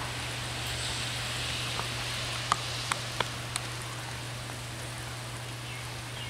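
Steady hiss of rain, with four sharp ticks coming between about two and a half and three and a half seconds in, over a low steady hum.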